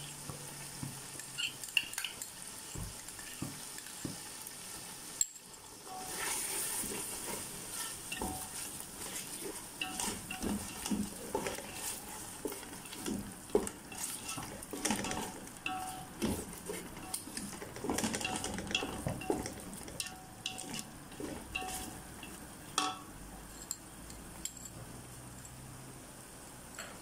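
Slotted wooden spatula stirring and scraping prawn masala around a metal pot, with many small knocks and scrapes against the pot over a steady frying sizzle. The stirring picks up about six seconds in and eases off near the end.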